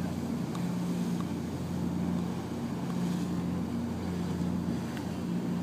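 Water bus's engine running steadily under way, heard from inside the passenger cabin: a low drone with a hum that wavers in pitch, over a steady rush of wind and water.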